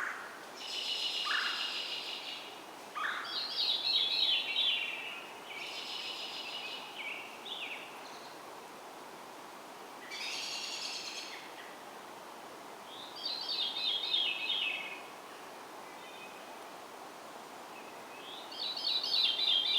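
Songbirds singing: trilled and warbling phrases, each a second or two long, repeated every few seconds with a few shorter lower notes between, over a steady hiss of background noise.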